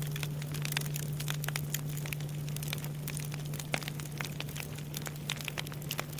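Wood fire crackling, with many sharp, irregular snaps and pops. Under it runs the low, steady hum of a Japanese temple bell (bonshō), still sounding from its last strike.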